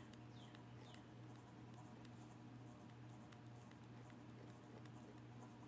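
Near silence: room tone with a steady low hum and a few faint, scattered ticks.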